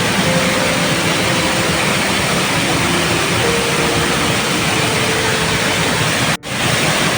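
Steady, loud rush of a waterfall, briefly cut off about six seconds in before resuming.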